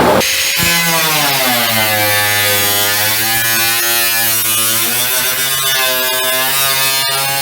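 A power tool's motor running steadily, its pitch dipping and rising slightly as the load changes.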